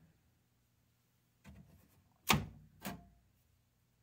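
Two sharp plastic clacks about half a second apart, the first louder, with a softer scrape just before them: a freshly 3D-printed part being pulled off the printer's build plate.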